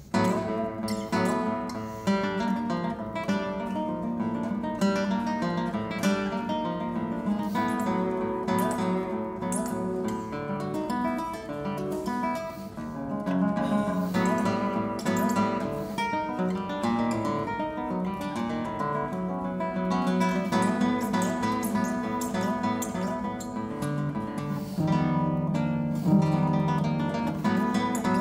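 Solo nylon-string classical guitar playing a dense passage of rapid plucked notes and chords, opening on a sudden loud attack.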